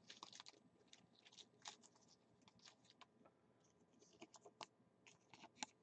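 Near silence with faint, scattered scratches and clicks of football trading cards being handled and slid between the fingers.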